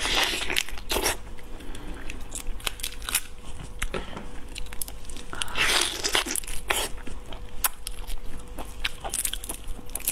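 Close-up eating of a large marinated prawn: the shell crunches and crackles as it is bitten, and there are two longer sucking, slurping sounds at the head, one at the start and one about six seconds in.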